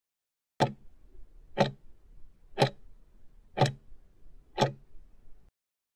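Countdown-timer ticking sound effect: five sharp clock-like ticks, one each second, marking the last seconds of a quiz timer running out.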